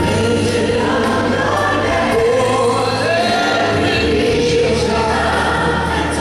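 Large gospel choir singing held notes in harmony, many voices together, over steady low bass notes.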